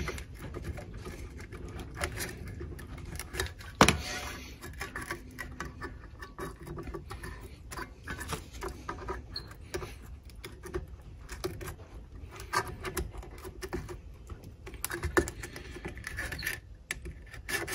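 A blade scoring and scraping at a worn hook-and-loop (velcro) sanding disc stuck to a floor-sanding edger's metal pad: irregular scratches and small clicks, with one sharper knock about four seconds in.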